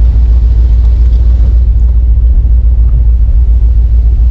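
1971 Corvette convertible's V8 running on the move with a steady low rumble, wind noise on the microphone from the open top mixed in.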